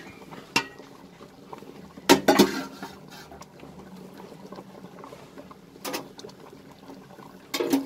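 Rice and water bubbling at a rolling boil in an open metal pot, a faint steady bubbling. A few sharp knocks of metal on metal break it, the loudest about two seconds in.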